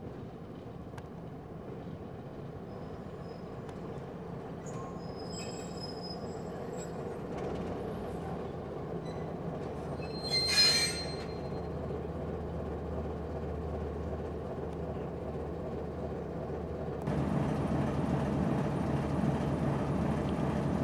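A Baldwin S12 switcher's six-cylinder diesel engine running as the locomotive rolls slowly up and past, its drone growing louder as it nears. High-pitched wheel squeals come a few seconds in, with one short, loud squeal about halfway through. The sound steps up louder about three seconds before the end as the locomotive comes alongside.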